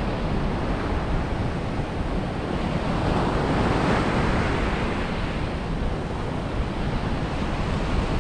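Ocean surf breaking steadily on the beach, swelling and easing as waves come in, with wind rumbling on the microphone.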